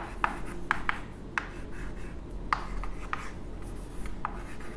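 Chalk writing on a blackboard: a run of short, sharp taps and scrapes as each stroke of the numbers is made.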